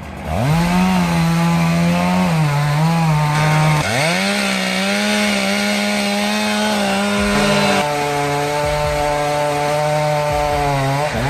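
Two-stroke chainsaw running at full throttle, cutting wood. It revs up at the start, bogs and picks up again about four seconds in, shifts pitch near eight seconds, and drops off at the very end.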